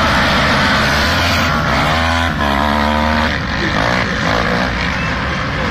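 A pack of racing quad bikes (ATVs) running hard together, a loud dense engine drone with the pitches of individual engines rising and dropping as they accelerate and shift.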